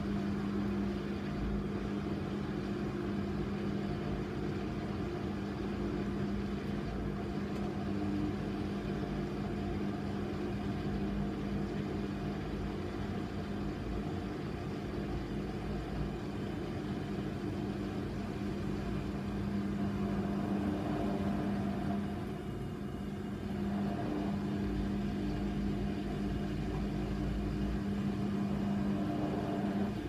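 Hoover Nextra HNWL 7146 front-loading washing machine in its wash cycle, the drum tumbling a waterlogged duvet: a steady motor hum over the churning of the wet load. The sound dips slightly about two-thirds of the way through.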